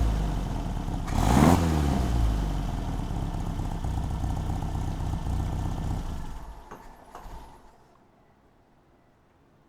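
1964 Triumph TR4's four-cylinder engine running, blipped once to a brief rev about a second and a half in, then switched off about six and a half seconds in, running down over a second or so to quiet.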